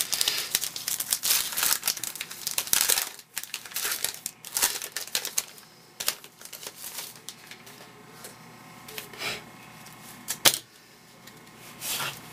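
A baseball card pack's plastic wrapper crinkling and tearing open, busiest in the first few seconds, then cards rustling as they are handled, with a sharp tap on the table near the end.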